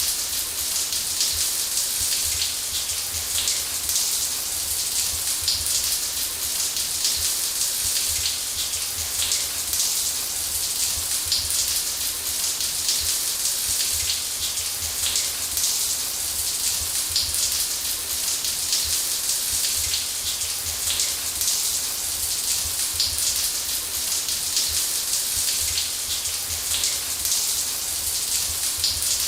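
Shower running: a steady hiss of spraying water with fine pattering of drops, over a low rumble.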